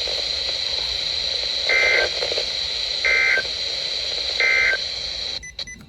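NOAA Weather Radio End-of-Message signal: three short, identical bursts of SAME data tones about 1.3 seconds apart over steady radio hiss, marking the end of the warning broadcast. The audio cuts off abruptly near the end.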